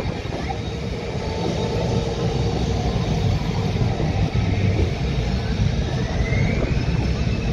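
F-35 fighter's Pratt & Whitney F135 jet engine running as the jet taxis along the runway: a steady low rumble, with a whine that rises in pitch near the end.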